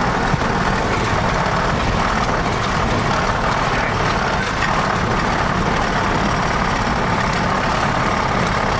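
Cessna 172's piston engine and propeller running steadily, heard from inside the cabin while the plane rolls out along the runway after landing.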